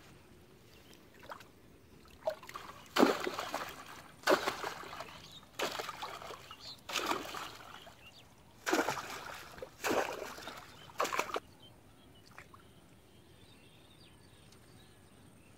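Water splashing in a shallow muddy ditch: a run of about seven separate splashes, roughly one every second and a half, starting about three seconds in and stopping about three-quarters of the way through.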